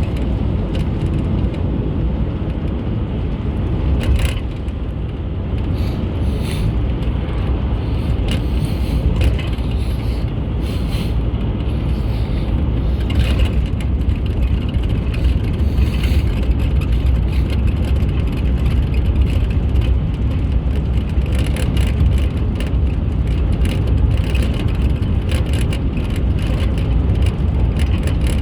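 Steady low rumble of a car driving, road and wind noise, with scattered small rattles and ticks.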